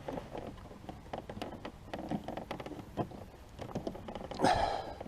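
Plastic body panel of a Can-Am Spyder being handled and pressed into place: a string of small clicks, ticks and creaks, with one louder brief noise about four and a half seconds in.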